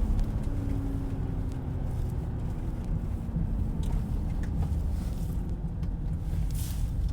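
Steady low road and tyre rumble inside the cabin of a moving Mercedes-Benz GLS 580 SUV, with a few faint light ticks.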